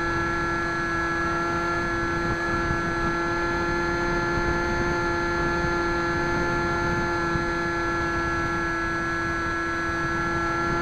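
Bixler foam RC plane in flight, heard from its onboard camera: the electric motor and pusher propeller whine at a steady, unchanging pitch over a rush of wind noise.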